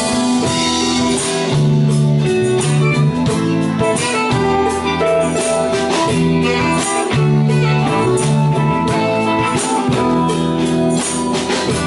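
Live band playing an instrumental break with no singing: guitar over a bass line and a steady beat.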